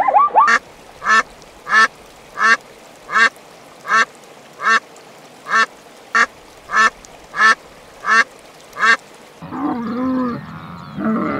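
Duck quacking in a steady series, about thirteen short quacks evenly spaced, roughly three every two seconds. Near the end the quacking stops and a lower, wavering animal call takes over.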